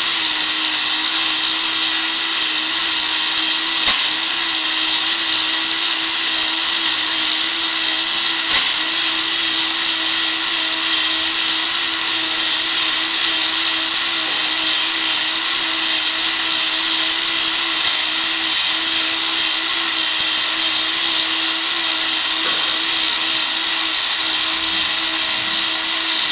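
Small electric motor of a model drawbridge running steadily as it lowers the deck, an even whirring whine, with two light clicks about four and eight and a half seconds in.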